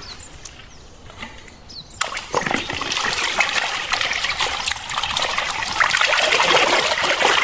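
Water splashing and trickling over plastic toy vehicles as they are washed, quiet at first and then a steady, dense splashing from about two seconds in.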